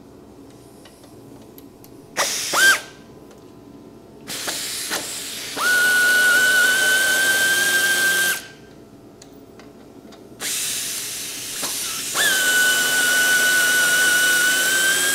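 Power tool run in three bursts, a brief one and then two long runs of several seconds, each a steady high whine over a hiss that climbs quickly in pitch as it starts: a power tool spinning out the front-end bolts.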